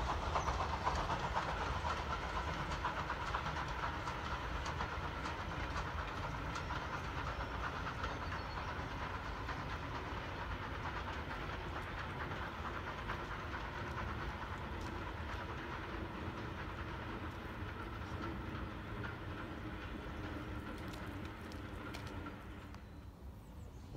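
Steam train running away into the distance, its sound slowly fading. It cuts off abruptly about a second before the end.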